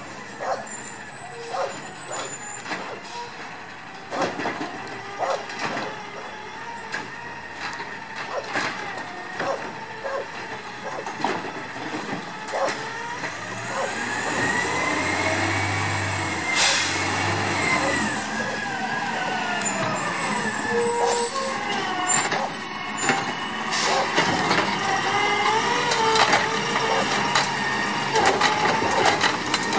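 A 2016 Autocar ACX garbage truck with a CNG engine and a Dadee Scorpion automated side-loader works a curbside pickup. The engine rises and falls in pitch as the arm cycles, and there are repeated sharp knocks as carts are handled and dumped. It grows louder near the end as the truck drives up.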